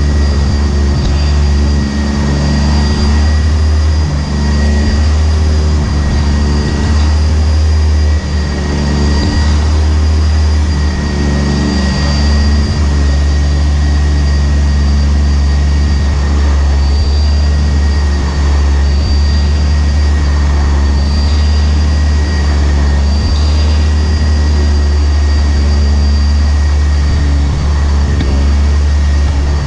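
Sanitaire SC679j commercial upright vacuum running steadily, heard close up from a camera mounted on the vacuum: a loud low hum with a steady high whine above it.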